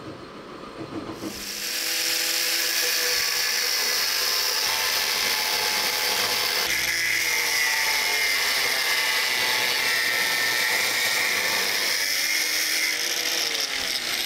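Angle grinder with a thin cut-off disc cutting through steel flat bar, starting about a second in with a steady high whine. Near the end the disc is lifted clear of the cut and spins free.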